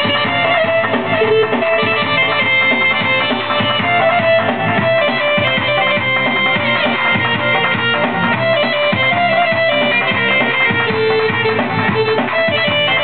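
Korg Pa-series arranger keyboard being played: a melody over a steady rhythmic accompaniment.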